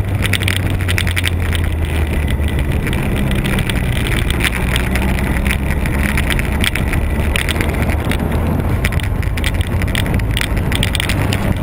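Kawasaki ZZR1400's inline-four engine running at low, steady revs as the bike rides slowly along, with wind buffeting on the bike-mounted camera's microphone.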